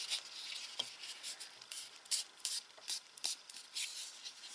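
Cardstock glue tabs being bent and rubbed into shape by fingers: a string of short, dry paper rubs and rustles with a couple of faint clicks.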